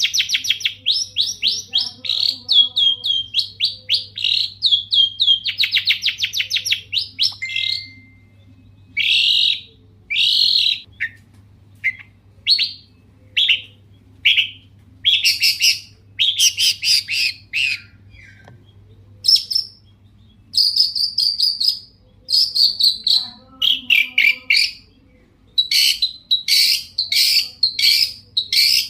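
Long-tailed shrike (cendet) singing in the full, mimicry-filled song used to provoke other shrikes: a fast run of rapidly repeated notes for about the first eight seconds, then a string of short, separate harsh calls in quick groups.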